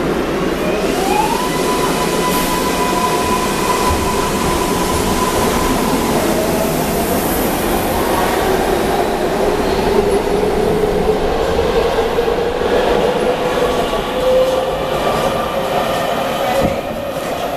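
MARTA rapid-transit train pulling out of the platform and accelerating away, its wheels rumbling on the rails. A steady electric whine sets in about a second in, and a lower motor whine rises slowly in pitch as the train gathers speed.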